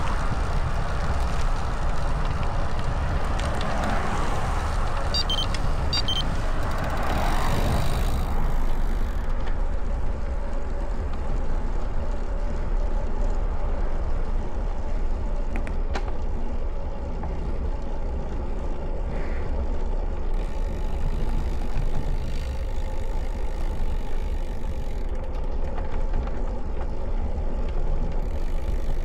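Wind buffeting the microphone of a camera mounted on a moving road bike, with tyre noise on rough asphalt. Two short high beeps come about five and six seconds in, and a single click near the middle.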